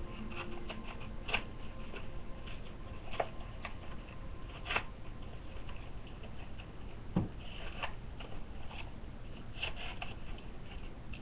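Scattered crinkles, taps and rustles of MRE packets and pouches being handled and sorted.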